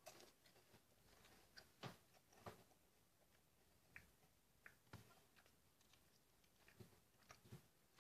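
Faint, irregular clicks and crackles over near silence, the loudest a couple of seconds in.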